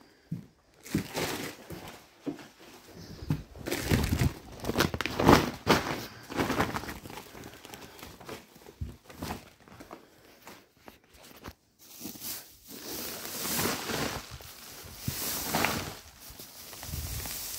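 Hay being packed by hand, rustling and crunching in irregular bursts, with a brief pause about two-thirds of the way through.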